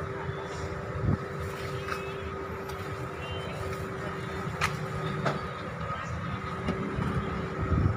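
A steady motor hum with a low rumble underneath, broken by a few short clicks.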